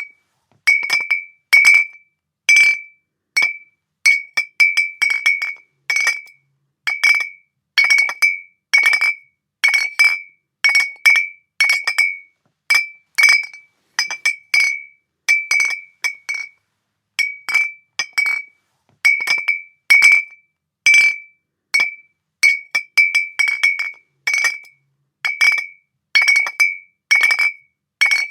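Glass bottles clinking against each other over and over at an irregular pace, sometimes singly and sometimes in quick little clusters. Each clink is a short, bright ring at the same pitch.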